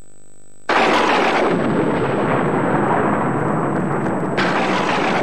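A steady low hum is cut off by a sudden thunderclap less than a second in, which rumbles on and slowly dies away. A second clap of thunder breaks in near the end: a stormy cartoon sound effect.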